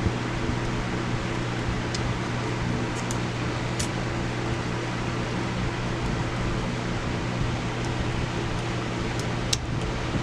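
Steady fan-like room hum with a low drone, and a few faint light clicks from handling small plastic calculator parts.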